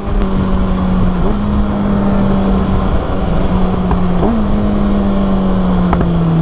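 Kawasaki Ninja ZX6R's inline-four engine running at a steady cruising note while riding, with a couple of brief throttle wobbles and the pitch easing down near the end, over wind noise.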